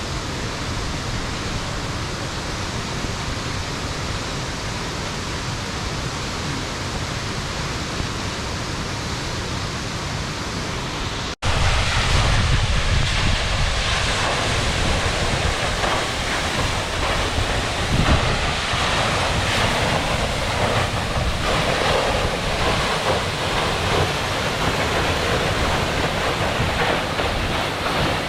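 Steady rushing of a waterfall. About a third of the way in, a cut leads to louder rushing with wind buffeting the microphone.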